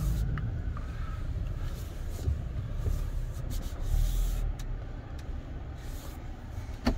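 Low rumble of a 2022 Toyota Tacoma TRD Pro's V6 and tyres as the truck crawls forward slowly over forest ground, heard from inside the cab, with a few brief hissing scrapes and a couple of sharp clicks near the end.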